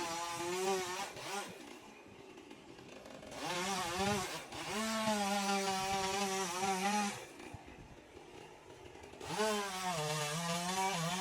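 Two-stroke chainsaw run at high revs in three long bursts, its pitch wavering as it works, dropping back to a low idle between bursts.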